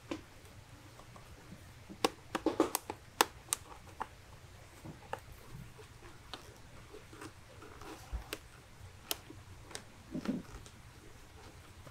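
Hands working on a motorcycle helmet's plastic parts: a quick run of sharp plastic clicks and taps about two seconds in, scattered single clicks after, and a softer knock near the end.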